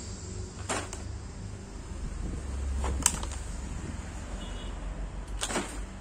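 Plastic blister-card toy packs being handled and set into a cardboard box: three short crackles or knocks, about a second in, midway and near the end, over a low steady rumble.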